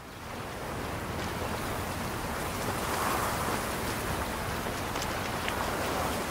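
A steady rushing noise of water, swelling in over the first half second, with a few faint clicks.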